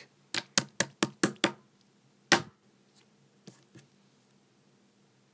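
Plastic slime cup knocked upside down to tip the slime out: six quick knocks in about a second, one louder knock a little after two seconds in, then two faint taps.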